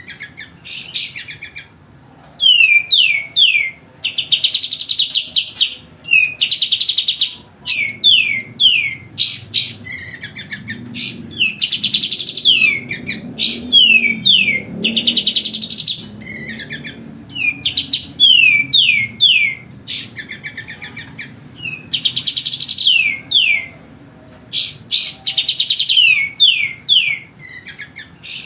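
Kapas tembak, a bulbul, singing in fast chattering bursts: runs of quick falling whistled notes alternating with buzzy trills, each burst a second or two long with short pauses between.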